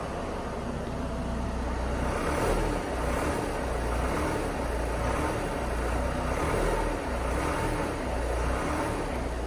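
VW T6 Transporter's 2.0-litre diesel engine running, swelling slightly a few times as light revs are put on. The mechanic takes the accompanying blowing for a small exhaust leak, later traced to a cracked EGR pipe at the back of the engine.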